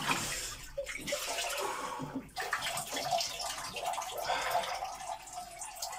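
Ice water in a homemade bath tank sloshing and streaming off a person standing up out of it, loudest in the first second, then settling into lighter splashing and trickling.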